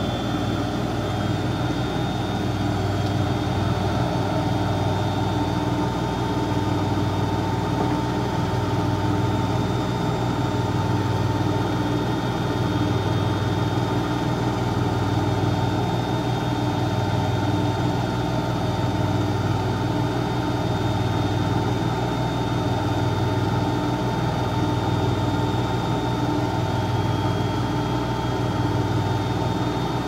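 Siemens Siwamat iQ front-loading washing machine running with its drum turning, a steady machine hum with a higher whine over it. The low hum pulses gently about every two seconds.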